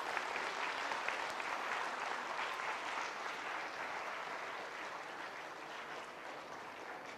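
Audience applauding: many people clapping together, the applause slowly dying down toward the end.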